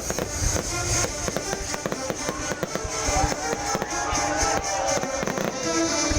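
A fireworks display going off in dense, rapid crackling bangs, many cracks a second, with music playing underneath.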